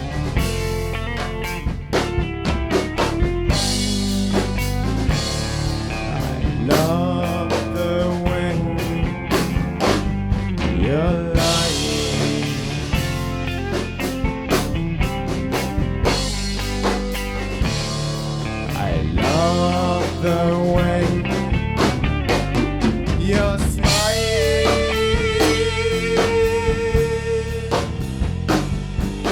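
Instrumental rock music: electric guitar with bending lead lines over bass and a drum kit, with a long held guitar note near the end.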